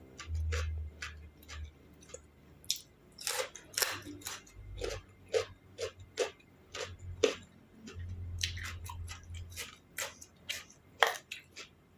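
A person chewing and biting food close to the microphone, a string of short, irregular crunches and mouth clicks.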